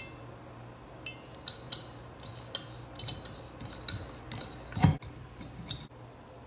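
Irregular light metallic clicks and clinks of a hex key working the set screws of Moen tub spout and shower lever trim, with a louder, duller knock about five seconds in.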